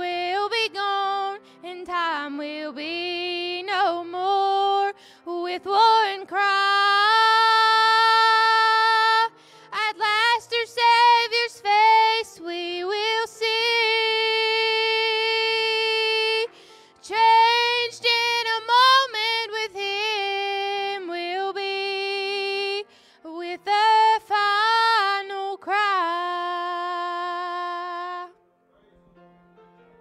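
A woman singing a gospel song solo over a faint accompaniment, with long held, wavering notes and slides between them; her last note ends about two seconds before the end.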